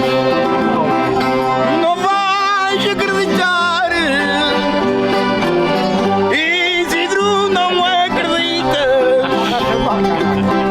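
Live folk music: string instruments and an accordion playing together, with singing voices.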